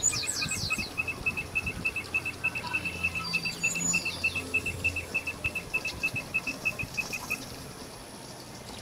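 Chirping from a small animal: an even series of short, high chirps, about five a second, that stops a second or so before the end, with a few quick falling whistles mixed in.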